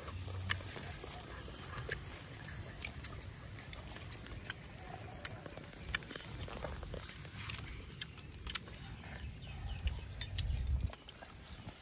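Roasted snail shells clicking and tapping against a wire grill and each other as they are picked at with thin sticks, with slurping and chewing as the snail meat is eaten. Under it runs a low rumble that stops abruptly near the end.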